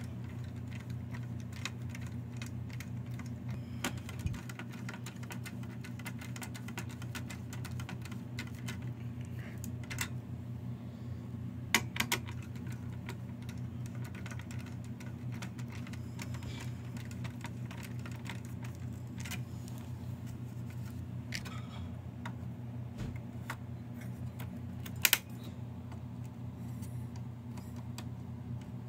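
Scattered small clicks and taps of a screwdriver and fingers on screws, metal and plastic parts inside a desktop computer case, the sharpest about 12 and 25 seconds in, over a steady low hum.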